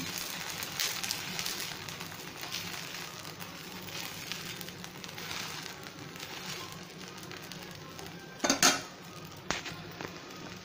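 Dosa frying in ghee on a hot nonstick tawa, a steady sizzle with fine crackling. A brief louder scrape or knock comes about eight and a half seconds in.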